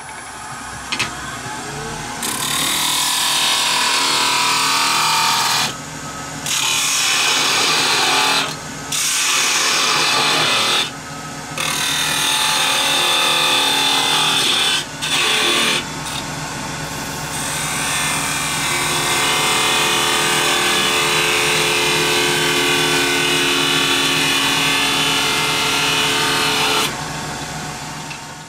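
Wood lathe running at speed while a gouge cuts the bottom of a spinning wooden box, a loud hissing cut that breaks off briefly several times as the tool is lifted from the wood, over the steady hum of the lathe motor. The cutting stops near the end.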